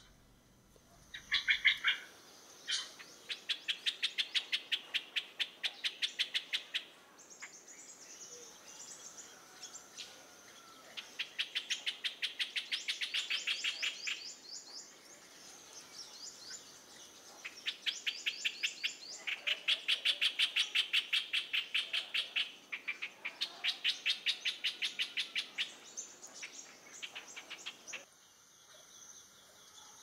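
Streak-eared bulbul calling: a harsh, dry chatter of sharp notes, several a second, in bouts of a few seconds with short pauses between them. The bouts stop near the end.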